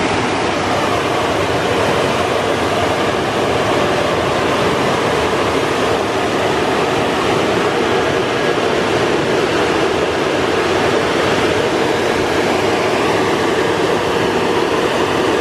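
Car wash tunnel dryer blowers running, a loud, steady rush of air.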